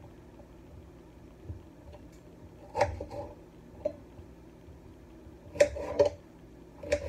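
Scattered knocks and clatters of hands-on food prep at a kitchen counter, a few short ones spread through the second half.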